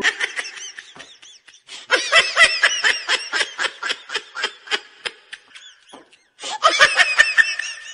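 High-pitched cartoon laughter: rapid, squeaky ha-ha pulses coming in three runs, with short breaks about a second in and about six seconds in.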